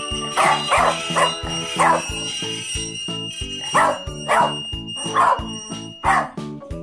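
A dog barking in short, sharp barks, about eight of them in two runs, the first four quickly at the start and the rest from about four seconds in. Background music with a steady beat plays under the barks.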